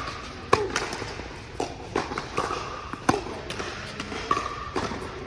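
Tennis rally on an indoor hard court: a string of sharp racket-on-ball hits and ball bounces, the loudest about half a second in and about three seconds in.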